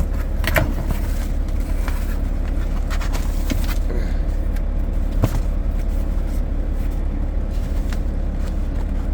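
A steady low rumble, with a few light clicks and taps on top: one about half a second in and a sharper knock about five seconds in.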